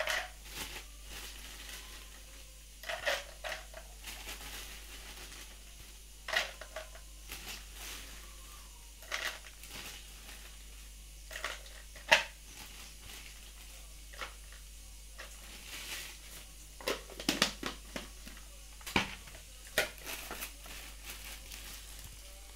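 Handfuls of cashew nuts dropping into a glass jar, each giving a short rattle and clink against the glass, with a plastic bag crinkling as it is handled.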